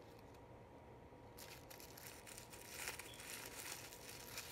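Paper fast-food wrapper crinkling in the hands, faint, starting about a second and a half in.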